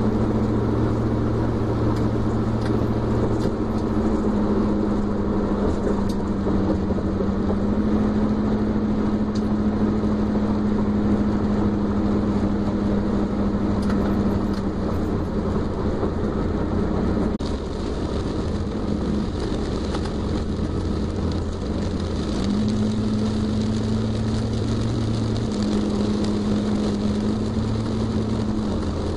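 Engine and road noise inside a car cabin at highway speed: a steady engine drone whose pitch steps up and down a few times, over an even hiss of tyres on a wet road.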